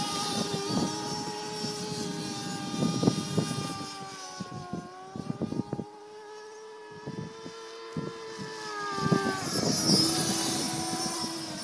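A 46-size model engine in a radio-controlled speedboat running at full speed, a high, buzzing note that drops in pitch and fades as the boat runs off into the distance in the middle, then rises in pitch and loudness as it comes back near the end. Short crackles come and go over the engine note, the loudest about three seconds in.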